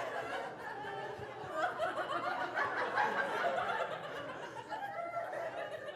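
Audience laughing, many voices overlapping, easing off toward the end.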